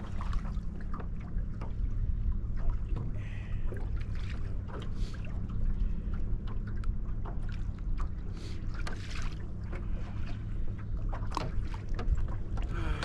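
Steady low hum and water slapping against a bass boat's hull, with many light scattered knocks and rattles as a crappie is handled and unhooked from the landing net at the bow.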